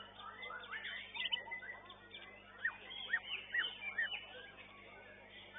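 White-rumped shama (murai batu) singing: quick high chirps, then a run of about four clear whistled notes in the middle, each rising and falling, growing quieter near the end.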